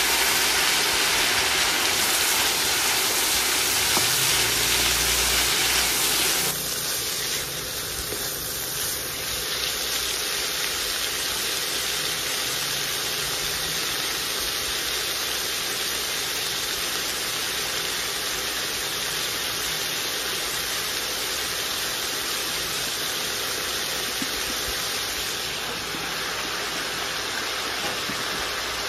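Vegetables sizzling in a hot wok as they stir-fry, a steady hiss that drops suddenly in loudness about six seconds in and carries on more quietly.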